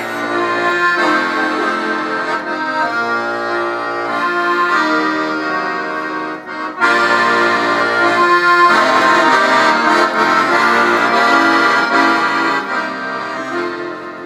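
Accordion playing a short intro in B flat: sustained chords with a melody line over them. It eases off briefly about six and a half seconds in, then comes back in louder.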